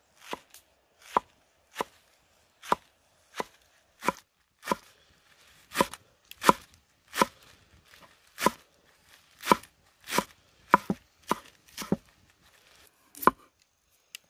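Large kitchen knife chopping scallions on a thick round wooden chopping board. About twenty slow, even chops, each a sharp knock of the blade on the wood, roughly one every two-thirds of a second.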